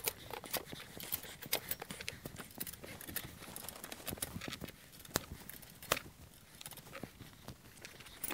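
Irregular metallic clicks and clinks of 3/8-inch steel flange bolts and nuts being handled and fitted by hand into a steel cross bunk bracket, with two sharper clicks about five and six seconds in.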